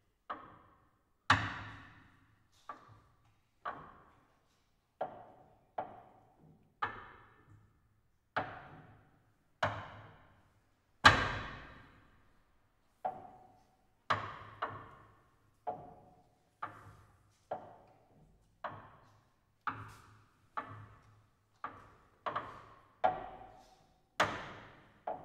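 Contemporary chamber music for clarinet, cello and piano in a sparse passage of single sharp, percussive strikes, roughly one a second at uneven spacing, each ringing briefly and dying away. The loudest strike comes about eleven seconds in.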